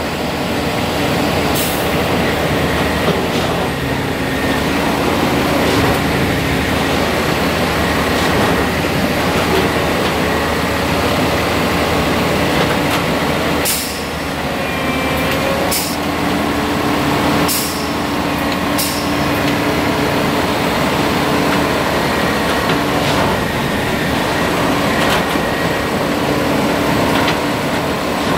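Heavy rail track maintenance machine running steadily on its diesel engine, with several brief sharp hisses of air release, the first near the start and most in the middle.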